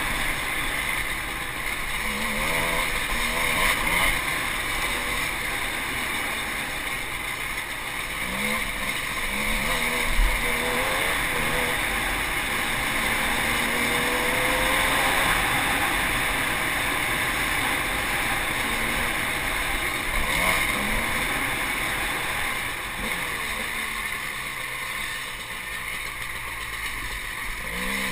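Enduro dirt bike engine revving up and down while being ridden, its pitch rising and falling again and again, heard from the rider's helmet-mounted camera.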